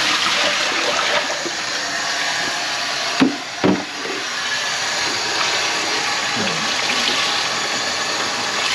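Tap water running steadily into a kitchen sink whose drain has just been cleared with a snake. Two short knocks come a little past three seconds in.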